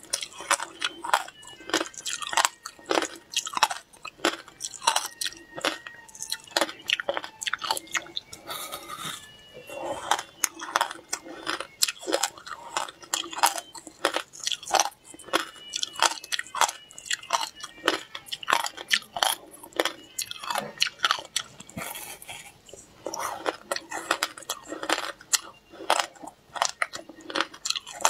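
Frozen ice coated with passion fruit pulp, matcha powder and sesame seeds being bitten and chewed: a dense run of sharp cracks and crunches, one after another.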